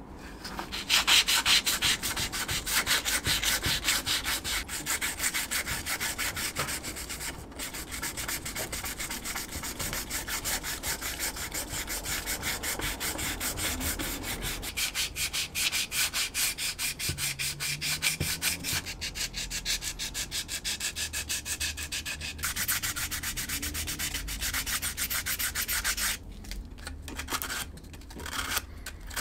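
Hand sanding the edges of a 2.4 mm Kydex sheath with folded blue sandpaper: a quick, steady back-and-forth scratchy rubbing of abrasive on hard plastic. It starts about a second in and thins to a few separate strokes near the end.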